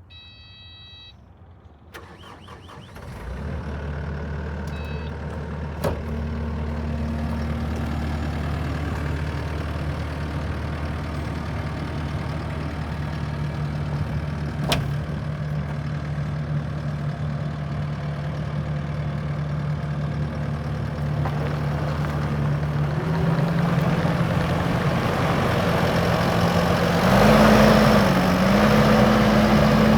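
Kubota SVL75-2 track loader's diesel engine: a brief electronic warning tone, then the engine cranks and catches about three seconds in and idles steadily. About 23 seconds in it is throttled up, and it runs faster and louder near the end.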